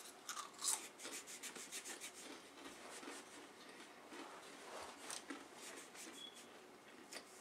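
Faint crunching and crackling of dry saltine crackers being chewed and snapped into pieces by hand: a quick run of small crackles over the first couple of seconds, then scattered ones.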